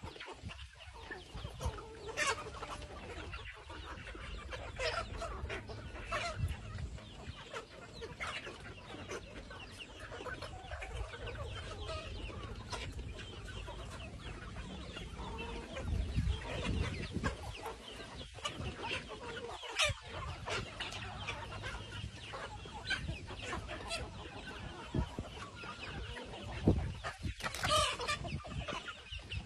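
A flock of free-range chickens clucking and calling as they feed, with many short overlapping calls throughout and a louder flurry of calls near the end.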